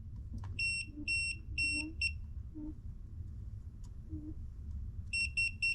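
WGGE WG-1005B non-contact voltage tester's buzzer beeping with a high electronic tone as it senses AC voltage on a live power cord: four evenly spaced beeps about a second in, then a gap, then a faster run of beeps near the end. The quicker beeping is the sign of a stronger sensed voltage or a probe closer to the live conductor.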